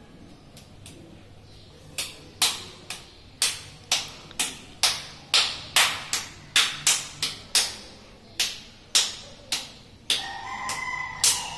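A small child clapping his hands. Sharp, uneven claps at about two a second start about two seconds in, each ringing briefly in a small room. A short held tone sounds near the end.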